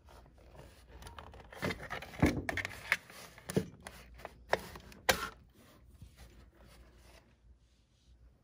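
Knocks, scrapes and rattles of a bulky plastic appliance being gripped, lifted and shifted about. There is a run of irregular sharp knocks between about one and five seconds in, then only faint rubbing.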